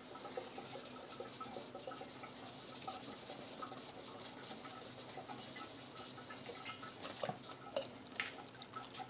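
Oil filter housing cap on a BMW N62 V8 being unscrewed by a gloved hand: faint scraping and small irregular clicks, with a few sharper clicks about seven to eight seconds in as the cap comes free and oil starts dripping.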